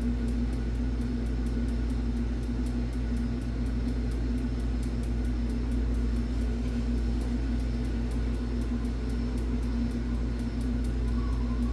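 Old Bryant gas furnace running during its startup: a steady mechanical hum.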